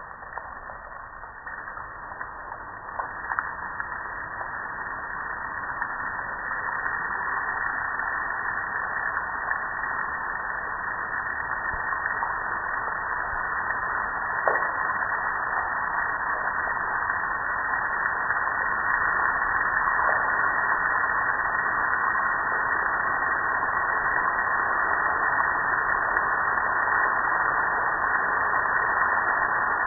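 Water spray from a hose hitting a soap-covered gas grill: a steady hiss of spray and splashing that grows louder over the first several seconds and then holds, with a couple of faint knocks.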